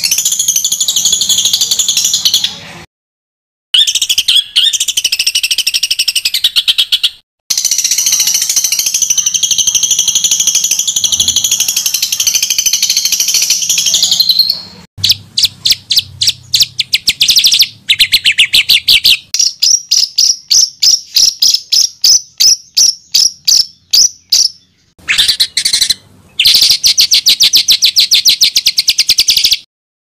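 Songbird song for bird training: dense, rapid-fire chattering trills and fast runs of sharp repeated high notes, in phrases broken by short abrupt silences. The longest unbroken trill runs from about a quarter of the way in to about halfway, and a run of evenly spaced clipped notes follows.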